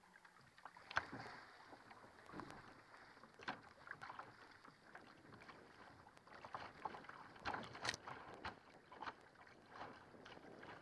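Water splashing and slapping against the hull of a surfski moving through chop, with irregular sharp splashes from the paddle blades; the loudest splashes come about a second in and near eight seconds in.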